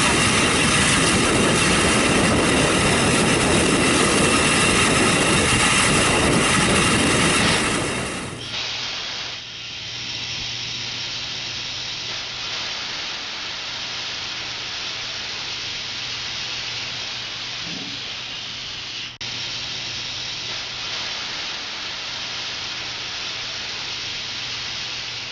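Steam locomotive No. 461 hissing steam: a loud, rough hiss for about the first eight seconds, then an abrupt drop to a quieter, steady hiss with a low hum as it stands at the platform.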